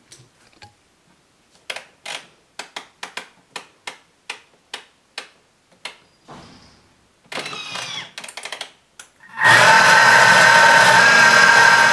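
Vorwerk Bimby TM5 (Thermomix) selector dial clicking step by step as the time and speed are set, then, about three-quarters of the way in, the motor starting at speed 6 and running loud and steady with a high whine as it grinds roasted peanuts into peanut butter.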